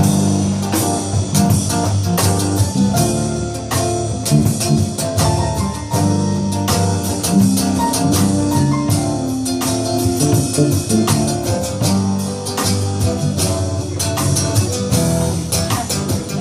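Live band playing an instrumental intro, drum kit and bass under piano, in a soul-jazz style.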